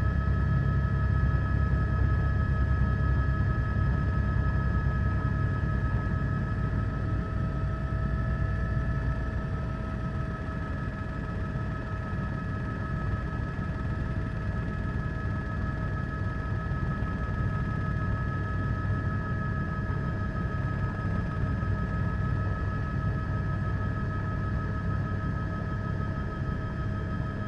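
Helicopter noise heard from aboard the aircraft: a steady low rotor rumble under a constant high turbine whine, easing slightly in level about ten seconds in.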